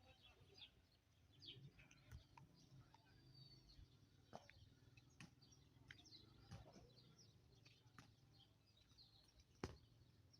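Faint, scattered bird chirps over a low rumble, with a few sharp clicks, the loudest near the end.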